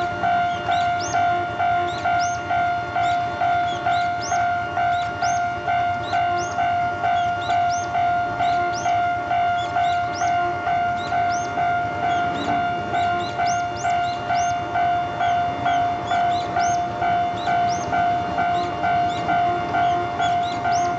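Japanese railway level-crossing warning bell of the electronic type, an electronic tone made to imitate the old gong-style bell, ringing in an even pulse of about two strokes a second. Faint high, rising chirps sound above it.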